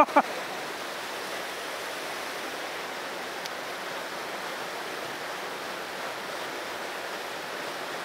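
Mountain stream water rushing steadily over a small waterfall into a rock pool.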